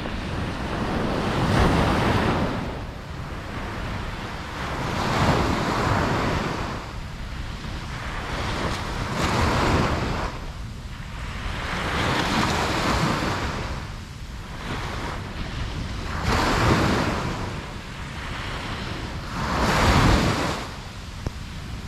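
Ocean waves breaking on a beach, the surf swelling and falling away about every three to four seconds.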